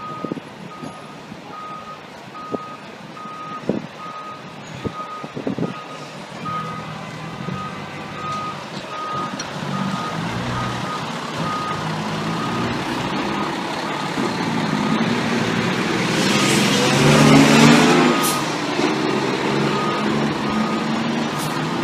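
FDNY Engine 35, a Seagrave diesel pumper, is manoeuvring into quarters. Its reverse alarm beeps steadily, a little under twice a second, and the beeping fades out about halfway. The engine's rumble grows louder as the rig comes close, with a loud hiss over it about three quarters of the way through.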